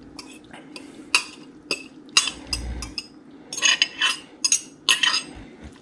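Metal spoon clinking and scraping against a glass measuring cup while scooping chunks of cured fish out of it, in irregular runs of short clinks that bunch up near the end.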